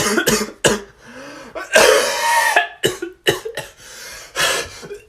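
A person coughing repeatedly: a run of about eight harsh coughs and throat-clearing, with a longer hacking cough about two seconds in.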